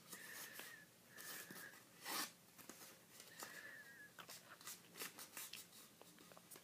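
A sheet of paper handled and creased by hand in origami folding: soft rustles and crinkles, the loudest about two seconds in. Three faint high whines, each under a second long, come in the first four seconds.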